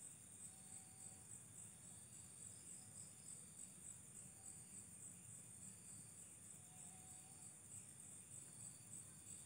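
Near silence: a faint, steady high-pitched chirring with an even pulse, over a low hum.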